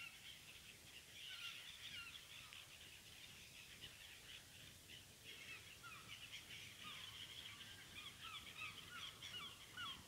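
A flock of black-headed gulls calling, faint and constant, with many short overlapping cries that stop abruptly at the end.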